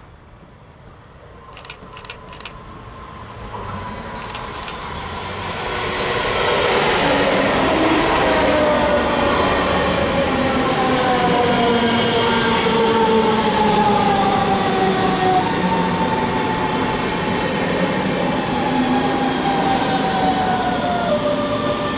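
DB Class 425 electric multiple unit approaching and passing, growing louder over the first six seconds. Its traction motors whine in several tones that fall slowly in pitch over the rumble of the wheels. A few faint clicks come about two seconds in.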